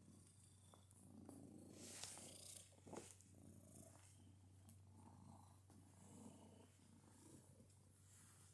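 Domestic cat purring quietly in a rhythmic pulse, with odd noises mixed into the purr. A brief louder burst comes about two seconds in and a short click about a second later.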